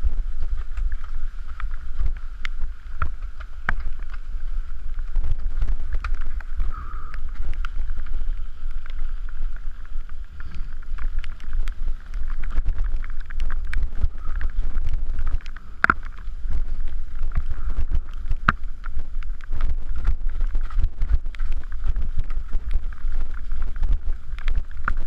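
Wind buffeting the microphone of a camera riding on a mountain bike descending a rocky trail, with frequent clicks and knocks as the bike rattles over rocks and ruts.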